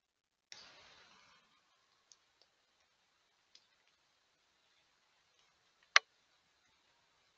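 Faint steady hiss of a trail camera's microphone, broken by a few small ticks and one sharp, loud click about six seconds in.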